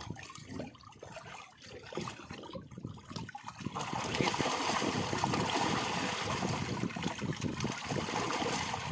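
Fish thrashing in a net drawn tight in a fish cage, with hands grabbing among them in the water: scattered splashes at first, then continuous heavy splashing from about four seconds in.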